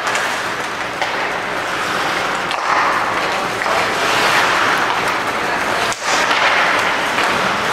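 Hockey arena crowd cheering and applauding, swelling in the middle, with a brief drop about six seconds in.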